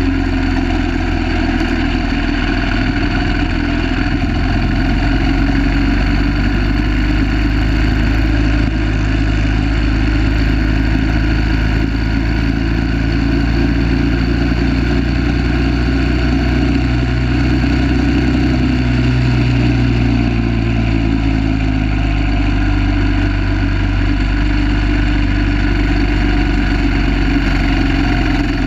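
1930 Terrot 350 HST's single-cylinder engine running steadily under load, heard from a camera mounted on the moving motorcycle.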